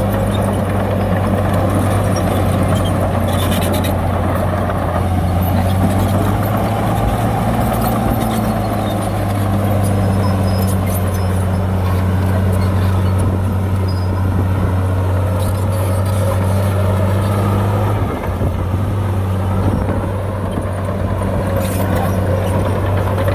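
Heavy diesel earthmoving machine's engine running steadily under a low hum, with occasional short clatters and scrapes; the engine note dips briefly about eighteen seconds in.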